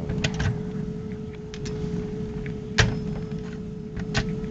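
A few sharp clicks and light knocks from a metal key being handled at a Brinks home safe's lock, the loudest about three seconds in, over a steady low hum.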